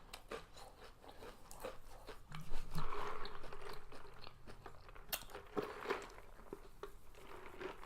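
A person chewing and crunching fast food close to the microphone: a run of bites and short mouth clicks, loudest from about two and a half to three and a half seconds in.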